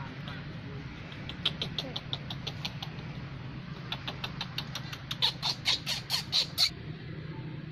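An animal's rapid series of short, sharp chirping calls, about six a second, in two runs; the second run is louder and stops abruptly.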